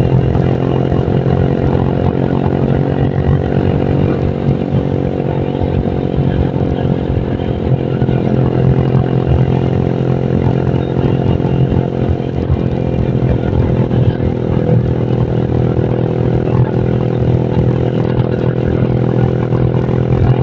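Honda Vario scooter engine, tuned up with a 55 mm piston, running at a steady engine speed while riding, its note holding an even pitch.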